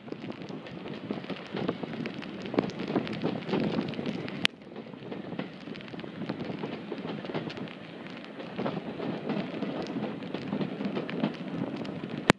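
Wind buffeting a microphone held out of a moving train's carriage window, over the running noise of the coaches on the track. A sharp click sounds about four and a half seconds in and again near the end.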